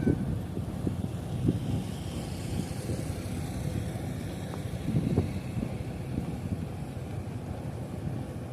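Low, steady rumble of a heavy diesel machine's engine, with irregular gusts of wind buffeting the microphone.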